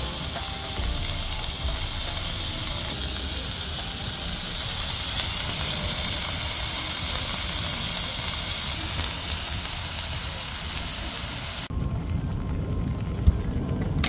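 Chicken and green-onion skewers sizzling in a frying pan, a steady hiss. About twelve seconds in the sizzle cuts off abruptly, giving way to a duller, lower background sound.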